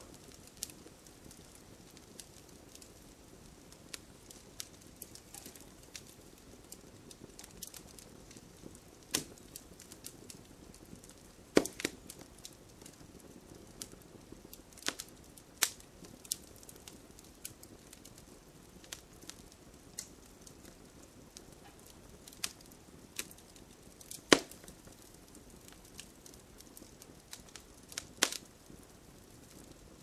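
Fire crackling in a fireplace: irregular sharp pops and snaps over a low, steady rustling hiss. A few louder pops stand out, the biggest about twelve seconds in and again about twenty-four seconds in.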